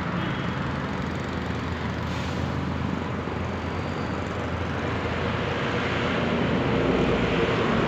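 A motor vehicle's engine running steadily, growing louder toward the end.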